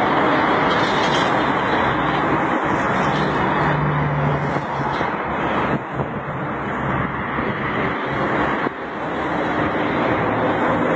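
Steady street traffic noise, with a brief low hum about four seconds in.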